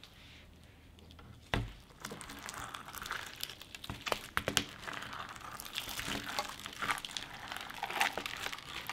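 Hands squishing and pulling apart a food-themed slime, giving a dense run of small sticky crackles and popping clicks. It starts quiet, with a single thump about a second and a half in.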